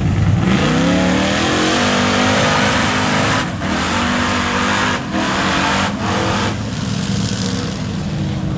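Lifted mud-bog truck on tall tractor-style tires revving hard through a mud pit, engine pitch climbing as it digs in, over a steady hiss of spinning tires and spraying mud. The sound drops out briefly a few times partway through.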